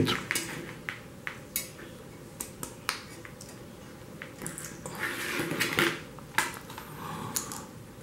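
Scattered light clicks and rattles of test leads and alligator clips being handled, with a stretch of rustling handling noise a little past the middle.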